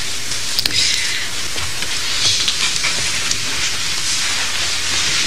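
Steady hiss from a noisy, worn recording, with a couple of faint clicks near the start.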